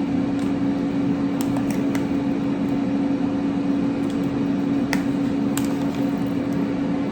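Steady hum of a running kitchen appliance, one held tone over a noisy whir, with a few light clicks and taps.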